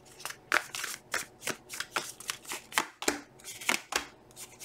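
A deck of tarot cards being shuffled hand to hand: quick irregular slaps and flicks of card on card, three or four each second.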